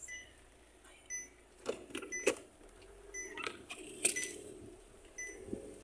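Inside a car moving slowly along a bumpy wet dirt road: a faint steady hum with several sharp knocks and rattles from the body jolting over the ruts, and faint short high beeps recurring every second or so.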